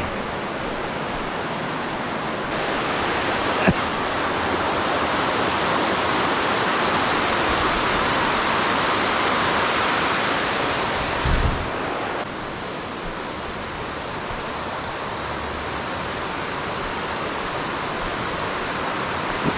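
Talofofo Falls' waterfall rushing steadily, with a short click about four seconds in and a low thump past the middle.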